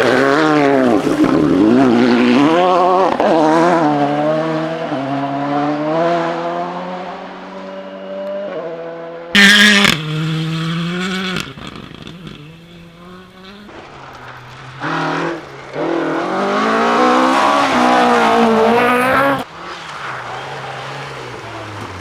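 Rally car engines at full stage pace, revs rising and dropping through quick gear changes as a car passes and fades away. About nine seconds in there is a short, very loud burst. Later a second car's engine climbs and falls again and cuts off suddenly.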